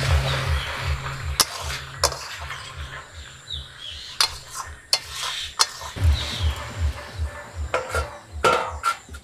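Metal spatula scraping and clinking against a steel wok as chicken and bottle gourd are stirred, with a light sizzle. A steel lid clatters onto the wok near the end. Birds chirp faintly, and a low pulsing, about three a second, runs underneath.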